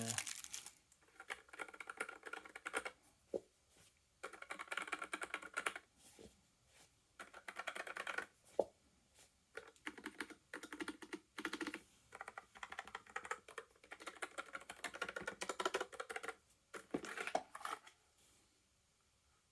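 Typing on a NuPhy Air75 low-profile mechanical keyboard with red linear switches: runs of quick key clacks in bursts with short pauses, pretty quiet, stopping near the end.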